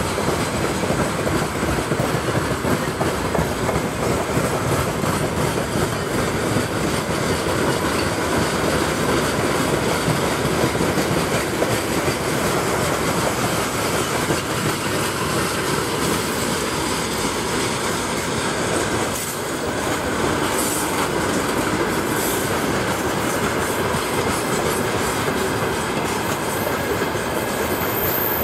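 Freight train of open four-axle gondola wagons rolling past close by: a steady, loud rumble and clatter of steel wheels on the rails.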